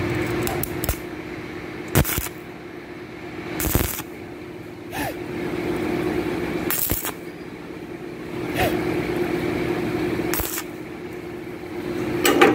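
Electric arc welding tacking the steel latch parts of a pickup's tailgate: several bursts of arc crackle lasting a second or two each, with sharp clicks between them as the arc is struck and broken. A steady hum runs underneath.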